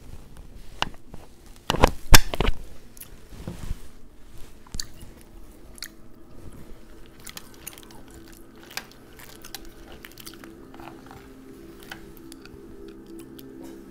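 Shellfish eating: crawfish and snow crab shells cracking and the meat being chewed. A loud cluster of sharp cracks comes about two seconds in, followed by scattered softer clicks and chewing.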